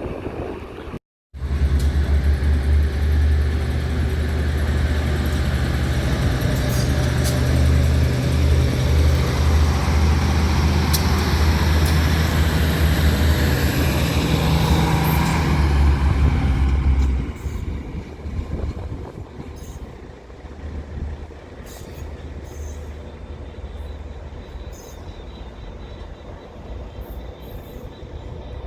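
Diesel train running loud and steady with a deep engine hum. It drops away fairly suddenly about two-thirds of the way through, leaving quieter station background.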